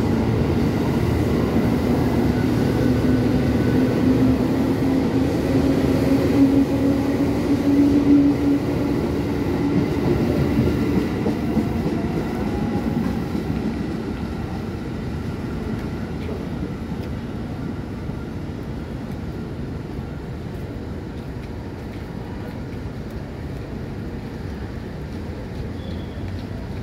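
Electric commuter train running out of the station with rumbling wheels and a motor whine that rises slightly over the first several seconds. The sound then fades steadily as the train pulls away.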